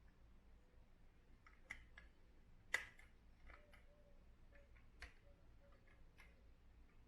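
Near-quiet room with a handful of light, scattered clicks, the sharpest about two and a half seconds in. They are the small clicks of a 1:24 die-cast model car and its packaging being handled.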